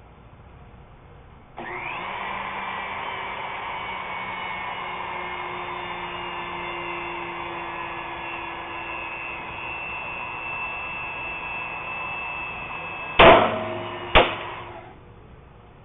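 Powered hydraulic pump running steadily, driving a double-chisel nut splitter, then two sharp pops about a second apart as the chisels break through the nut. The pump stops shortly after the second pop.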